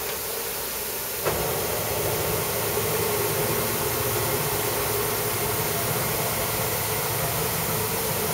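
Automated wet bench cleaning station running: a steady hiss of air with a low motor hum that starts with a click about a second in, as the transfer robot arm moves to the next tank.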